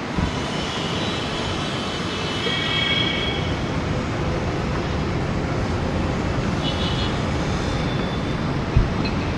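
Airbus A320-family airliner's twin jet engines running at high power on the takeoff roll: a steady roar with high whining tones over the first few seconds. A short low thump comes near the end.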